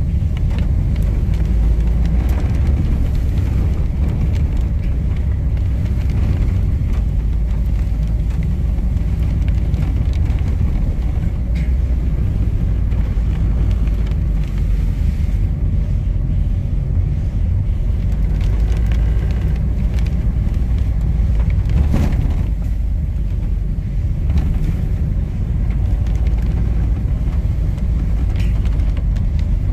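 Steady low rumble of a car's engine and tyres on the road, heard from inside the cabin, with a couple of faint knocks.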